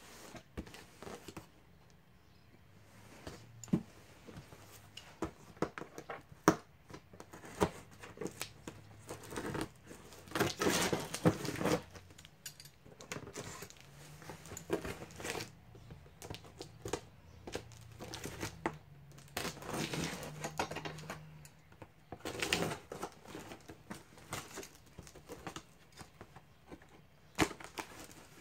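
A cardboard shipping box being handled, with scattered taps, knocks and scrapes on the cardboard. There are a few longer stretches of scraping and tearing as scissors cut through the packing tape.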